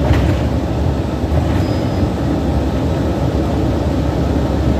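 Steady low rumble inside the cabin of a 2014 New Flyer XDE60 diesel-electric hybrid articulated bus: drivetrain and road noise of the bus running, with one brief click just as it begins.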